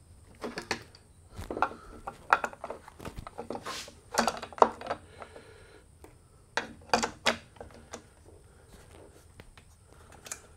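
Irregular clicks, knocks and clatter of a Stihl MS 261 chainsaw's bar, chain and plastic clutch cover being handled and fitted back onto the saw. The sharpest knocks come about four to five seconds in and again about seven seconds in.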